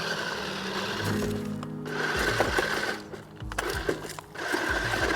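Toy RC truck's four small electric drive motors whining under throttle in several bursts, with short breaks, as it tries to climb a curb.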